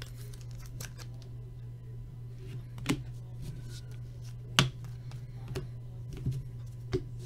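Trading cards being handled and sorted by hand: scattered sharp clicks and taps as cards are flipped and set down, the loudest about three and four and a half seconds in, over a steady low hum.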